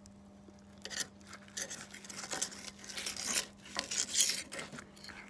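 A filleting knife cutting through a gurnard and scraping along its backbone on a cutting board: a run of short rasping strokes, starting about a second in and loudest toward the end.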